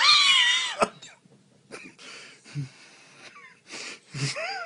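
A high-pitched, wavering voice sliding up and down for the first second, then a few short, breathy wet sounds of a dog licking, and another high wavering voice near the end.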